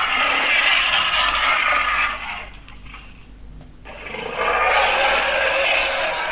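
Fictional monitor lizard sound effect: two long, raspy hisses of about two seconds each, with a short pause between them.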